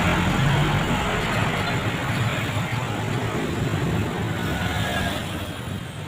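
Bus passing close by: engine rumble and tyre and road noise, fading toward the end.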